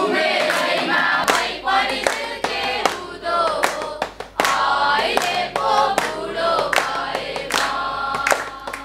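A group of children singing a song together, clapping their hands in rhythm as they sing.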